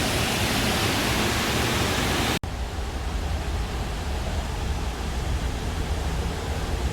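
Steady rush of water cascading down the terraced fountain walls of a water garden. About two and a half seconds in, the sound cuts out for an instant and resumes duller, with less hiss and a stronger low rumble.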